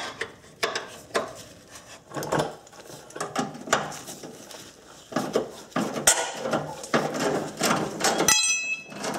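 Steel combination wrench clinking on a 12 mm suspension bolt as it is backed off and the sway bar bushing bracket is worked free: a string of light, irregular metal clicks and knocks. Near the end a sharp metallic clink rings briefly.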